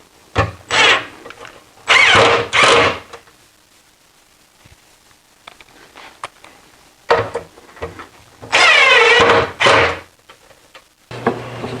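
Power drill driving screws to mount hinges, run in several short spurts with the motor whine rising and falling in pitch as each screw goes in.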